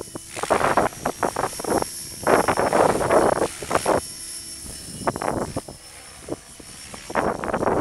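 Mikado Logo 550 SX electric RC helicopter flying aerobatics: a steady high whine from the motor under irregular surges of rotor whoosh as the blades load up.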